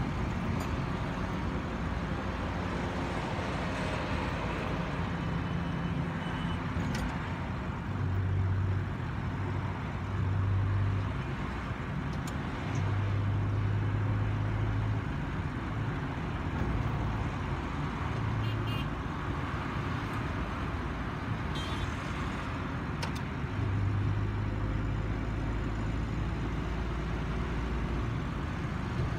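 Steady in-cabin road and engine noise of a Mahindra XUV500 cruising on a highway. A low drone swells and fades several times.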